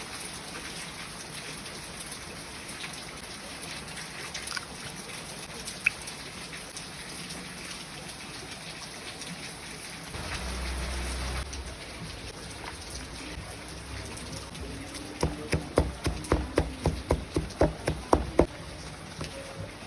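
A steady hiss like food frying in a pan. Near the end comes a quick run of about a dozen sharp knocks, roughly four a second.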